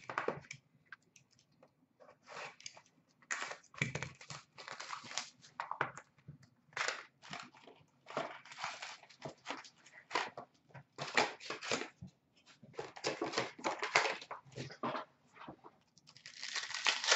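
Trading-card box and pack wrappers being opened and handled: irregular crinkling and tearing in bouts, with cards rubbing and flicking as they are sorted.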